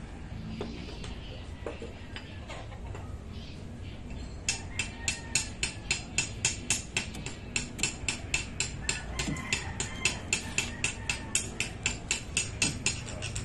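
Rapid, regular sharp clicks, about three a second, starting about four and a half seconds in, over a low steady background.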